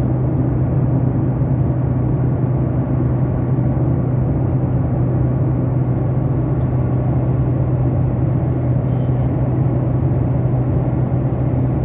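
Passenger jet cabin noise: a steady drone of engines and airflow with a strong low hum, unchanging throughout.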